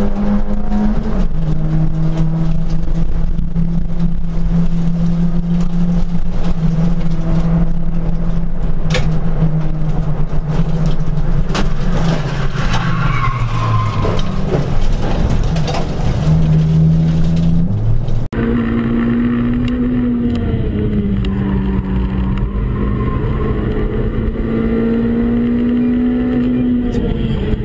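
Nissan Micra Cup race car's engine heard from inside the cabin, holding a steady note and then dropping in pitch as the car slows about 13 seconds in. At about 18 seconds it cuts to another car's engine heard from inside, rising and falling.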